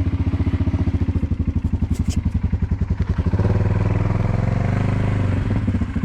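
ATV (quad) engine running at a lumpy, even idle, then revved for about two seconds in the middle as the quad is moved, and settling back to idle near the end.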